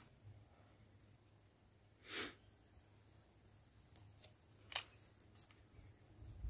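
Near silence broken by faint handling sounds of an air pistol: a short rush of noise about two seconds in, then a sharp metallic click about three-quarters through and two fainter clicks after it. A thin, high, wavering tone runs between the rush and the sharp click.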